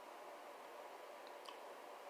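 Near silence: room tone, with two faint clicks about a second and a half in.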